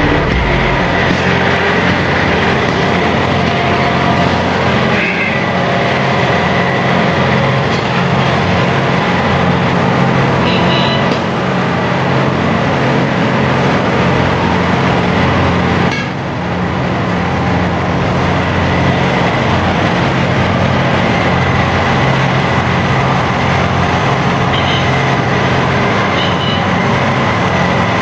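Heavy construction machinery running steadily with a deep diesel engine drone and a constant high whine. The sound shifts abruptly about 16 seconds in, as at a change of scene.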